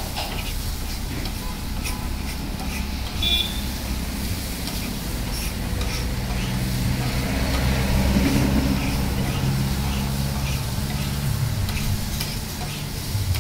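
Metal spatula scraping and clinking on a flat iron tava as idli pieces are tossed and fried in oil, with scattered sharp strikes. A vehicle engine rumbles underneath, growing louder through the middle and easing off later.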